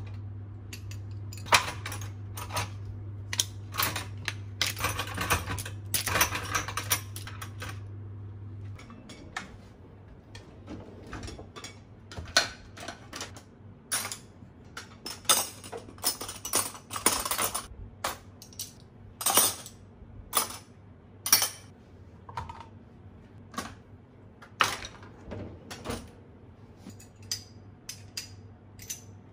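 Metal kitchen utensils and cutlery clinking and clattering as they are handled and put away: knives slid into a knife block, a cutlery drawer rattling. A steady low hum runs under the first nine seconds or so and then cuts off.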